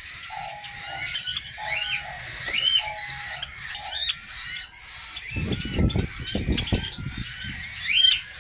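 Aviary birds calling: a short rising-and-falling chirp repeats about once a second over a lower note that repeats through the first half. About five seconds in comes a short run of low thumps.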